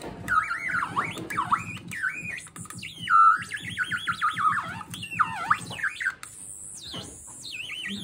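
Synth Bird electronic bird-synthesizer kit playing chirping, warbling electronic tones that swoop up and down in pitch, played by fingers on its touch pads. The tones mostly stop for a moment about six seconds in, then pick up again.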